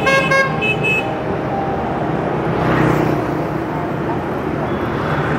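A vehicle horn sounding two short toots in the first second, over steady street traffic noise, with a vehicle passing about three seconds in.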